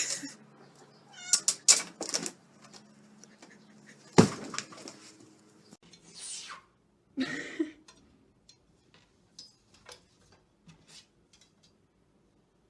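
A cat meowing, a few short calls about a second or two in. A sharp knock about four seconds in is the loudest sound, and light clicks and taps follow later.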